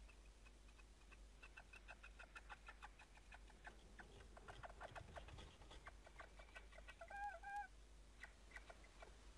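Faint bird calls inside a nest box: a quick run of soft, high chirps at about four a second, then around seven seconds a short two-note call.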